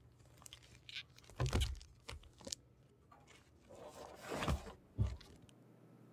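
A fabric backpack being handled as a book is pushed into it: rustling and scraping of the bag's cloth, with a few dull knocks of the book and bag against the table.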